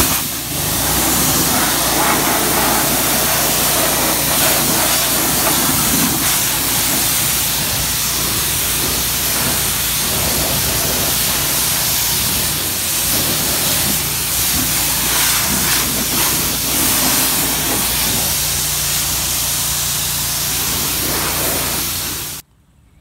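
Kranzle K1322TS pressure washer jet spraying water against a truck's tyre and wheel well: a loud, steady hiss of spray with a low steady hum underneath. It stops abruptly near the end.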